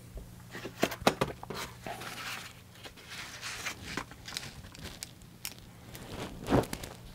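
Hands handling objects on a wooden workbench: scattered clicks and rustling, with a louder knock about six and a half seconds in, over a faint steady low hum.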